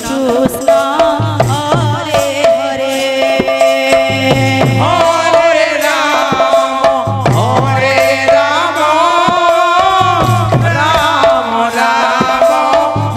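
Devotional kirtan music: a woman singing a wavering melody through a microphone, over a steady rhythm of two-headed barrel hand drums and small brass hand cymbals.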